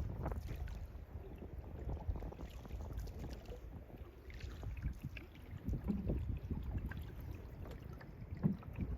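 Canoe being paddled, paddles dipping and dripping in the water, with a steady low rumble of wind on the microphone.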